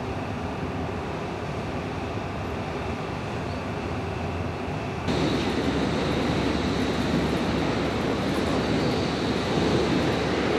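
SBB Ae 6/6 electric locomotive running light on the rails: a steady rumble of wheels and motors with a faint steady hum. About five seconds in the sound jumps abruptly louder and a high steady whine comes in.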